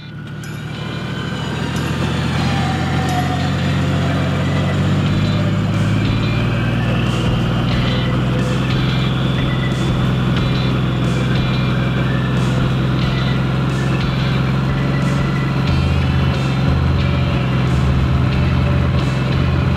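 Electric winch motor running under load as it drags the truck sideways on its rope: a steady drone that builds over the first couple of seconds and then holds.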